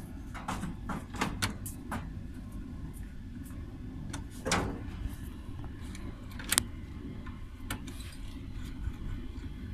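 Screwdriver clicking and scraping on metal terminal screws as wires are fastened into the terminal block of a split air conditioner's outdoor unit, in scattered sharp clicks, the loudest a little past the middle. A steady low rumble runs underneath.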